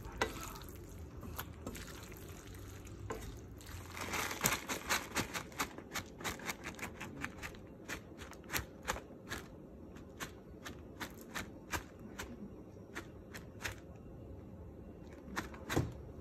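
Creamy carbonara sauce bubbling in a pan of fettuccine: irregular sharp pops, a few each second, with a brief hissing swell about four seconds in.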